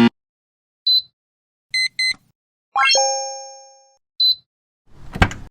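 Electronic beeps and a chime from an LCD digital car key responding to its function keys during pairing: a short high beep, a quick double beep, then a rising chime that rings out for about a second, another short beep, and a brief knock near the end.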